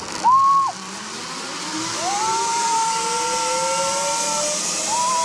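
Zipline trolley pulleys running along the steel cable: a whine that rises steadily in pitch as the rider gathers speed, over a growing rush of wind hiss. A brief high squeal sounds just before the run gets going.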